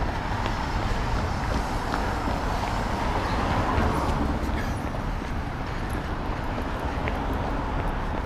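City street traffic noise, steady, with a vehicle going by and swelling about three to four seconds in.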